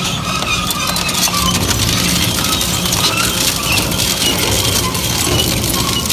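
Industrial crushing machine running under load, a steady low drone overlaid with dense crackling, cracking and clinking as material is broken up between its blades.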